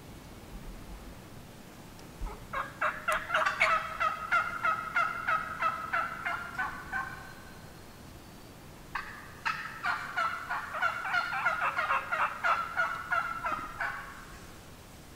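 Turkey calling: two runs of rapid, rhythmic notes, each lasting about five seconds, with a pause of about two seconds between them.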